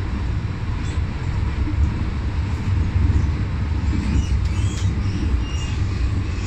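MTR M-Train electric multiple unit running at speed between stations: a steady low rumble of wheels on rails and running gear.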